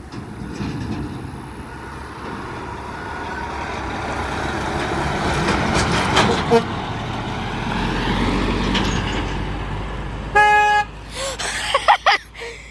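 Kenworth T800 dump truck passing close by, its engine and tyre noise building to a peak and then easing. About ten seconds in comes one short truck-horn toot, then a few brief gliding pitched sounds.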